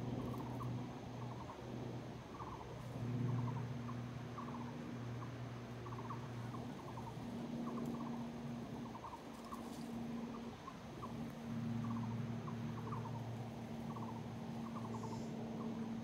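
Squirrels calling in the trees: short rapid chattering bursts, each a quick run of clicks, repeating about once a second. A low hum comes and goes underneath.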